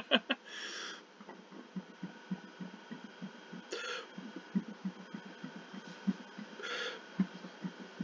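A person breathing audibly: three short, hissy breaths or sniffs about three seconds apart, over faint ticking.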